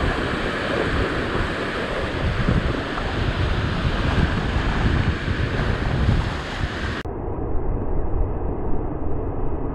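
Sea surf washing and breaking over a rock ledge, with wind buffeting the microphone. About seven seconds in, the sound abruptly turns duller as its upper range drops away.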